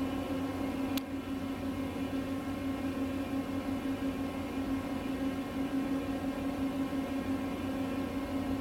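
Steady mechanical hum with one strong low tone, with a single faint click about a second in.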